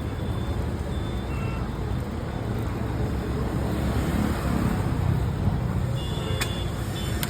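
Steady low rumble of road traffic, with a few faint higher tones and small clicks near the end.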